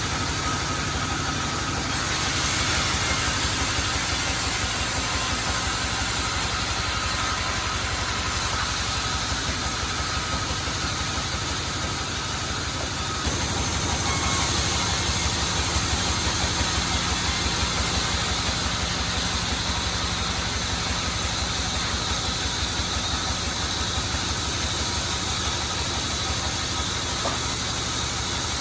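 Sawmill machinery running steadily while teak is sawn into rafters: an engine runs with an even low pulse, under a hiss that shifts in strength a few times.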